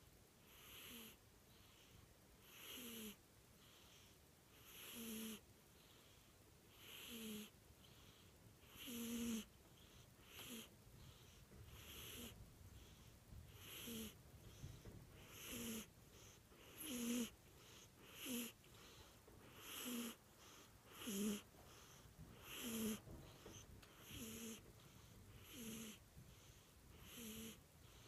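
A cat snoring in its sleep, a rasping snore with a short low buzz on each breath, one every one to two seconds, coming a little faster in the second half.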